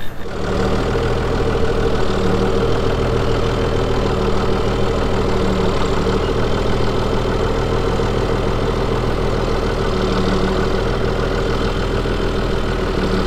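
A vehicle engine idling steadily at an unchanging pitch.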